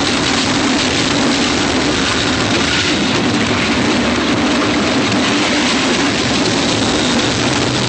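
Wooden roller coaster train running at speed along its track: a loud, steady rumble of wheels on rails mixed with rushing wind.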